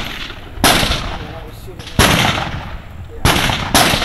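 Rifle shots fired from a kneeling position at a barricade: four shots, the first three about 1.3 seconds apart and the last quickly after the third. Each shot is followed by a long echo.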